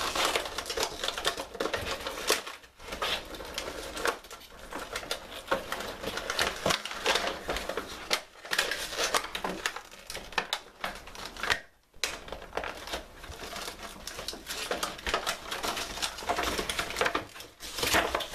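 Stiff clear plastic blister packaging crinkling and crackling as it is prised and pulled away from its cardboard backing card, which tears in the process. There is a short pause about twelve seconds in.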